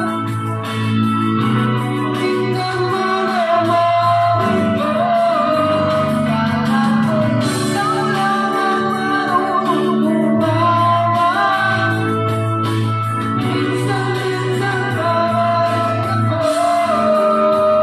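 Singing into a microphone over band accompaniment through a PA, with a bass line and a steady beat.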